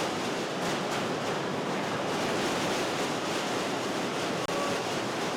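Steady, even rushing noise of an outdoor stadium crowd and open-air ambience at a soccer match, with no clear single event.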